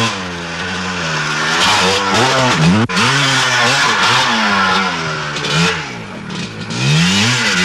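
Enduro motorcycle engine revving as it is ridden over rough ground, its pitch climbing and dropping several times, with the highest rev about halfway through.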